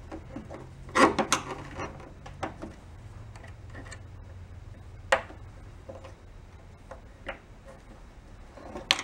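Screwdriver and pick tips prying at the snap-in tabs of a plastic rocker switch set in a stainless steel panel: scattered clicks and light scrapes, a cluster about a second in, then single sharp ticks a few seconds apart.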